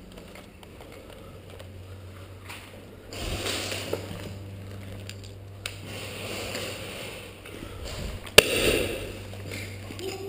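Footsteps and gear rustling as a player moves over a concrete floor strewn with debris, with one sharp crack about eight seconds in, the loudest sound.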